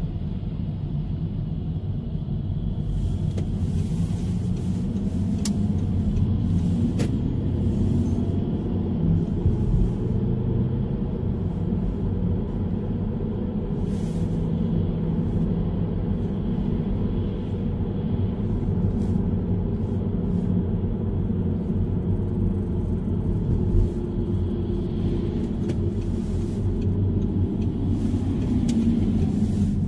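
A car's engine and tyre rumble heard inside the cabin while driving, a steady low drone whose engine pitch drifts up and down with speed.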